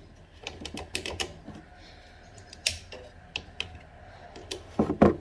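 Irregular clicks and clacks of spring-loaded jumper cable clamps being handled and clipped onto a riding mower's battery terminals, with a louder cluster of knocks near the end.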